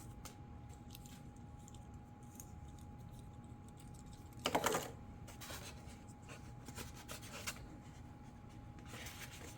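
Small plastic model parts and packaging being handled: light clicks and taps, with a short louder rustle about four and a half seconds in.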